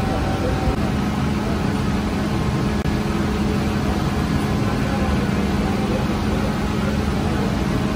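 Steady mechanical hum and low rumble of a gas-fired bread oven running. A steady low drone joins in about a second in.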